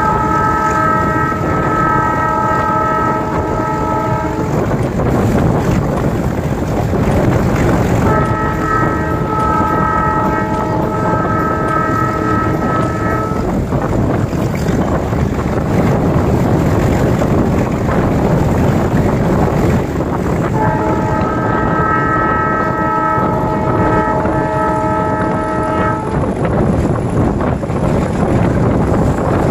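Meter-gauge passenger train running, a steady rumble of the moving coach heard from its open doorway, while the locomotive sounds its horn in three long blasts of about five seconds each, several seconds apart.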